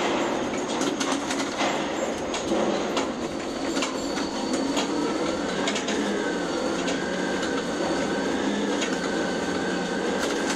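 Container crane hoist running as the spreader is lifted up through a ship's cell guides, heard from the operator's cab: a steady mechanical rumble with scattered clicks and rattles, and a steady whine that comes in about halfway through.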